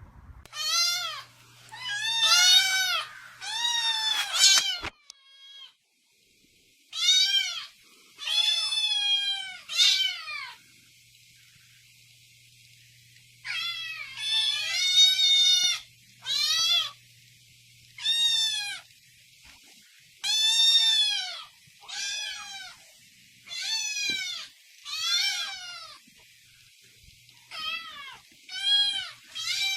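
A domestic cat meowing over and over in loud, drawn-out meows, each rising and then falling in pitch. The meows come in runs, with a few seconds' pause about a third of the way through.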